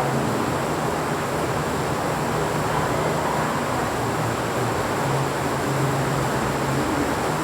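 Heavy rain falling steadily, an even hiss with no breaks, with a low hum underneath that comes and goes.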